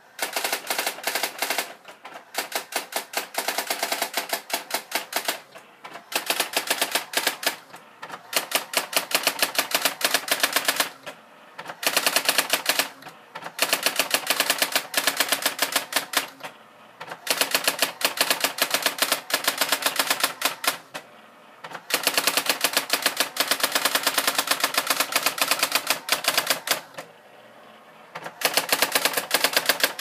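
Brother GX-6750 daisy wheel electronic typewriter printing its self-demo on its own. Rapid runs of printwheel strikes last a few seconds each, with short pauses between them.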